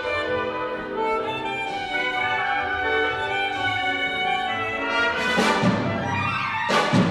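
Live wind band playing a dense passage with many instruments at once, punctuated by two loud percussion crashes about a second and a half apart near the end.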